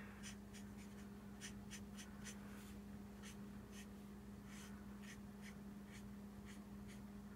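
Faint, irregular scratching strokes of a Stampin' Blends alcohol marker's broad tip on cardstock, blending the colour in, over a steady low hum.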